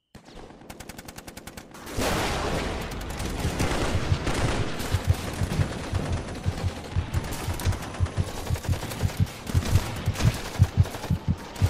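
Gunfire: a fast run of faint shots, then much louder, denser firing that breaks in suddenly about two seconds in. From about four seconds in a low, regular thumping, roughly three beats a second, runs under it.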